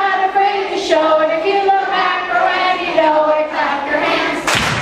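Voices singing a song together on steady, stepping notes. A short burst of noise comes near the end.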